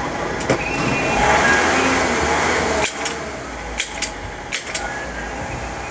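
Upholstery staple gun firing staples through fabric into a sofa frame: a run of sharp single clicks, most of them in the second half, over steady background noise.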